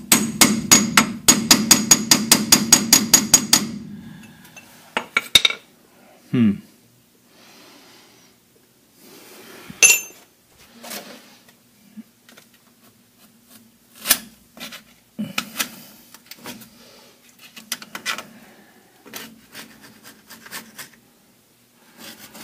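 Rapid metal-on-metal hammer blows, about six a second with a ringing tone, for the first three and a half seconds, striking a bar against the stuck spindle on a Dana 44 front axle knuckle. After that come scattered single clanks and clinks of steel tools and parts.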